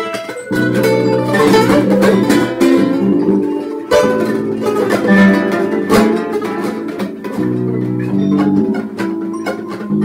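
Acoustic guitar played in quick runs of plucked notes and ringing chords.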